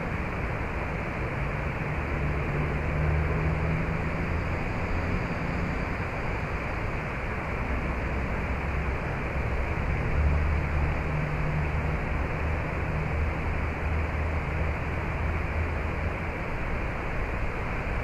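Steady rushing outdoor ambience with a low, uneven rumble underneath, unbroken throughout.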